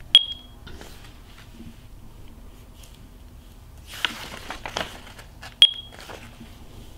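Two short, high, single-pitched beeps from a Zebra TC51 handheld terminal, one at the very start and one about five and a half seconds later, the beeps of barcode entry or scanning. Soft handling clicks and rustles come between them.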